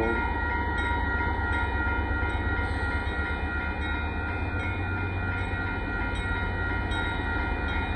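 Railroad crossing warning bell ringing steadily with the gates down, signalling an approaching train, over a constant low rumble.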